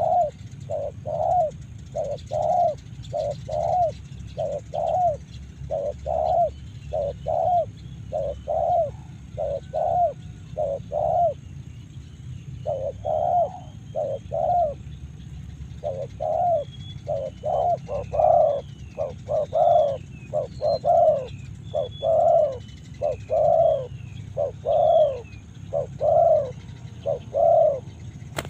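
Spotted dove (tekukur) cooing: a long, regular series of coos with a short pause about eleven seconds in. Small birds chirp faintly and higher in the second half.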